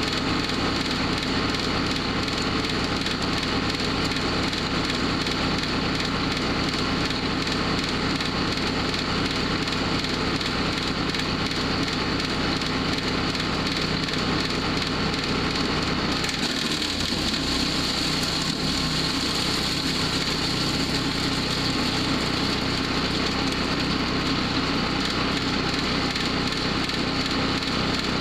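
Powerhorse wood chipper shredder running steadily with wood crackling and splintering as it is chipped. The sound shifts briefly about two-thirds of the way in.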